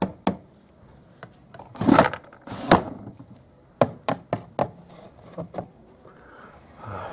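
A string of sharp knocks and taps on a wooden tabletop, a plastic toy pony figure being knocked and set down on the wood, with four quick knocks in a row about four seconds in.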